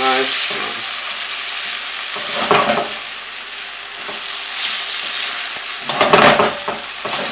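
Saltfish and peppers sizzling in hot oil in a frying pan while being stirred with a spatula, the steady sizzle broken by louder stirring strokes about two and a half seconds in and again, loudest, about six seconds in.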